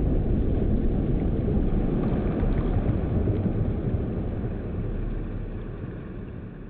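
Deep, low rumble of a boom's tail, fading slowly away.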